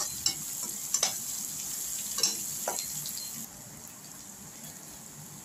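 Sliced onions, garlic and curry leaves sizzling in hot oil in a kadai, with a spatula scraping and clicking against the pan a few times as it stirs. The sizzle quietens sharply about three and a half seconds in.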